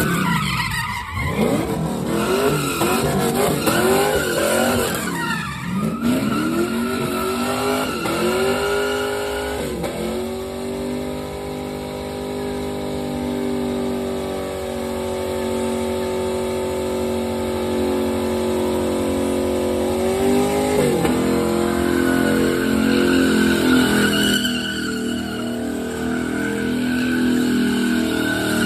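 Drift car's engine revving hard while the rear tyres spin in a smoky burnout. It swings up and down repeatedly for the first several seconds, holds one steady high note for about ten seconds, drops sharply about twenty seconds in, then revs in short uneven steps, with tyre skidding throughout.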